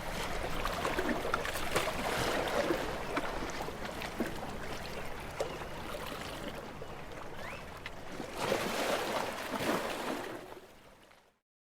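Sea waves washing and splashing against shoreline rocks, with a louder surge about a second in and another near the end, then the sound fades out to silence just before the end.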